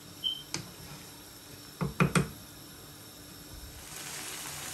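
Wooden spoon knocking against a stone-coated frying pan as liver masala is stirred: one knock about half a second in and three quick knocks around two seconds in. Near the end, the steady sizzle of the masala frying over high flame comes up.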